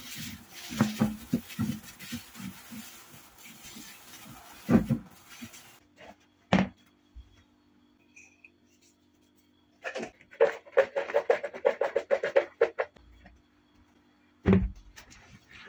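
Plastic cling film crinkling and crackling as it is pulled and stretched over a plate of dough. After a pause there is a quick run of small ticks as salt is shaken over diced eggplant, and a single thump near the end.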